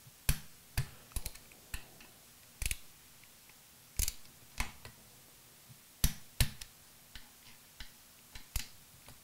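Irregular sharp metallic clicks and clacks of a socket and click-type torque wrench being fitted to and worked on the oil pump's mounting bolts, as the bolts are brought to 14 lb-ft; the loudest is a pair of clicks about six seconds in.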